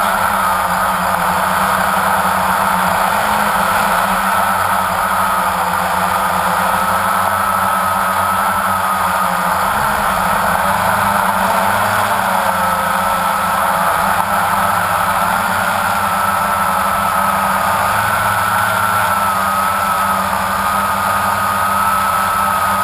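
A drone's propellers and motors whining steadily as it flies and hovers, heard from its own onboard camera, the pitch wavering slightly with a lower hum underneath.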